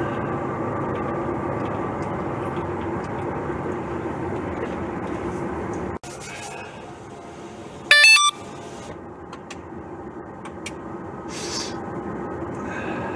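Semi-truck's diesel engine running steadily in the cab as the truck rolls slowly, with a faint steady hum. After a sudden drop to a quieter cab with the truck at a standstill, a short loud electronic beep that steps in pitch sounds about eight seconds in.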